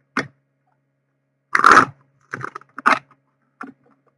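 Tarot cards being handled: a few short rustles and taps, the loudest a longer rustle about one and a half seconds in.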